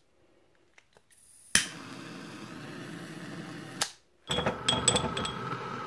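A long stick-type gas lighter lighting candles: a sharp click about a second and a half in, then a steady hiss for about two seconds that ends with another click. After a short pause, a second stretch of steady noise runs to the end.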